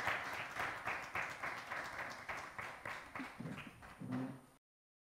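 Audience applauding, the clapping thinning out and fading, then cut off abruptly about four and a half seconds in.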